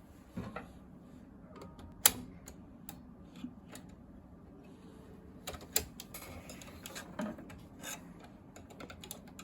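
Irregular sharp clicks and knocks from a document scanner's plastic parts, the loudest a single click about two seconds in.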